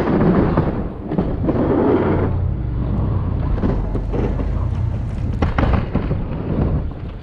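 A vehicle engine running under heavy wind buffeting on the microphone, with a steady low rumble and a few sharp knocks about five and a half seconds in.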